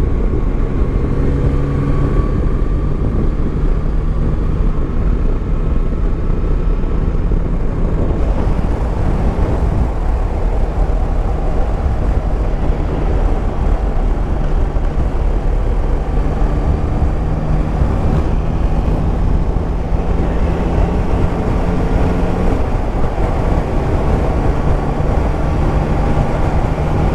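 Yamaha Tracer 9 GT's 890 cc inline-triple engine running steadily at road speed, under heavy wind rumble. The engine note drops a little about three-quarters of the way through.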